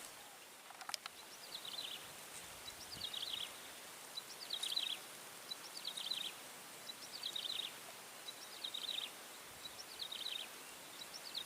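A small animal calling over and over, about once every second and a half: each call is a faint tick followed by a short, raspy, high-pitched chirp. There is a single sharp click about a second in.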